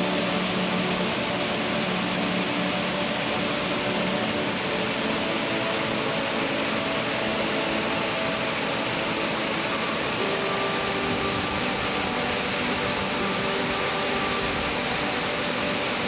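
Steady rush of falling water from a waterfall, with soft background music of long held chords over it.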